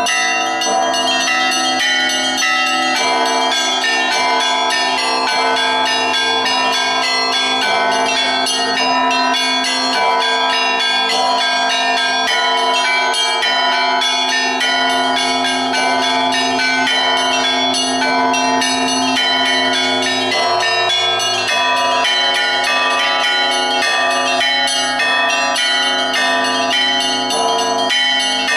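A set of Russian Orthodox church bells played by one bell ringer in the Polesie ringing style (Polesie zvon). Rapid interleaved strikes on the small high bells ring over steady, sustained tones from the larger bells, and the tones overlap continuously.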